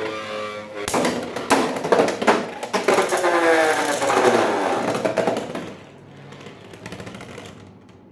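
Background music with sharp clicks in it, dropping away about six seconds in to a faint background.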